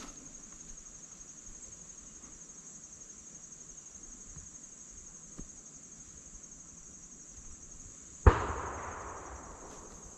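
A single gunshot about eight seconds in, sharp and loud, its report echoing away through the woods for a second or two, fired at a deer running ahead of the hounds. A faint steady high-pitched insect trill runs underneath.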